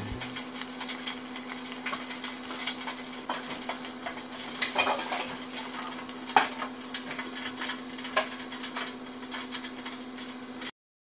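Hot oil in an electric deep fryer crackling and sizzling around a battered sushi roll, with scattered sharper pops, over a steady low hum. The sound cuts off abruptly near the end.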